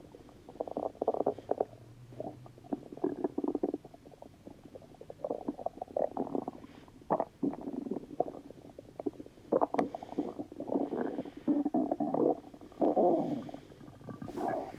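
A person's stomach rumbling: irregular bouts of gurgling and crackling, each up to about a second long, with short pauses between.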